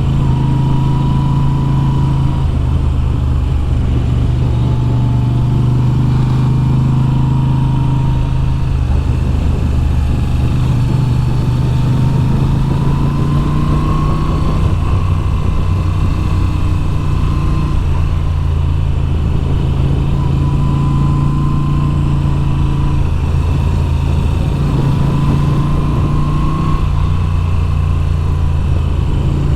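A 2022 Moto Guzzi V7's air-cooled 853 cc V-twin engine running under way on a twisty road, its pitch rising and falling a little with the throttle through the bends.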